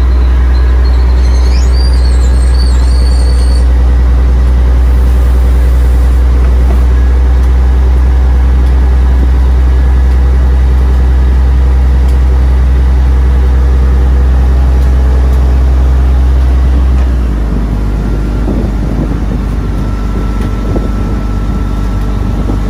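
Steady low rumble of a moving motor vehicle, easing off in level about three-quarters of the way through.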